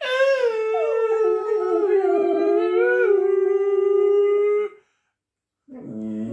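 A lurcher dog and a person howling together: one long howl held for almost five seconds, with two voices at slightly different pitches overlapping in the middle. After a short pause a new howl starts low near the end and rises.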